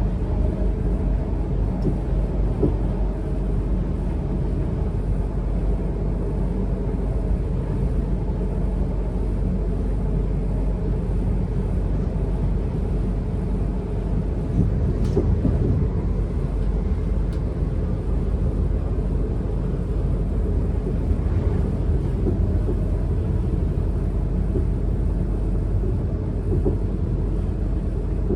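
Interior of a Siemens Desiro Class 444 electric multiple unit on the move: a steady low rumble of wheels and running gear on the track, heard inside the passenger saloon, with a brief light click about halfway through.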